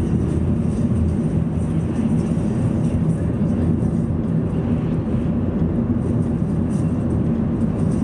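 Steady road and engine noise of a car driving at an even speed, heard from inside the cabin: a low, constant rumble.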